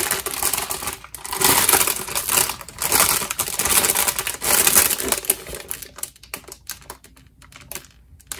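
Clear plastic bag wrapped around a pair of slippers crinkling as it is handled, in dense bursts that thin to scattered crackles over the last couple of seconds.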